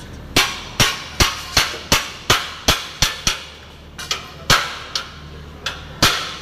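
Repeated sharp bangs of metal being struck, about two to three a second at first and then more irregular, each with a short metallic ring. A low steady hum runs underneath.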